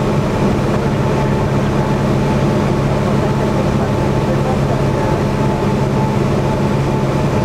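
Single-engine piston engine and propeller of a Piper PA-28 Cherokee droning steadily, heard from inside the cockpit.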